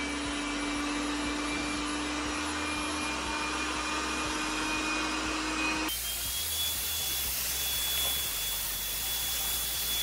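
Tesvor M1 robot vacuum running in edge-cleaning mode: a steady motor hum and whine. About six seconds in, the sound changes abruptly to a brighter hiss with a thin high tone.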